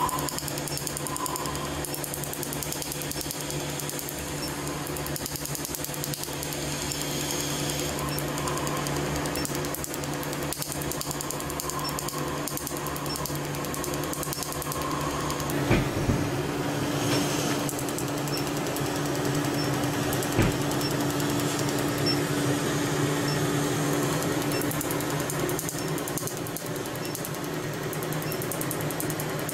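Q-switched tattoo-removal laser firing rapid repeated pulses, a fast, steady snapping over a steady hum. Two louder knocks come about halfway through, a few seconds apart.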